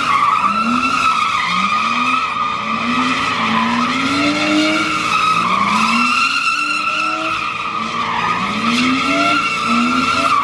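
Car doing donuts: a continuous tyre squeal that wavers slightly in pitch, with the engine revving up over and over, about once a second, beneath it.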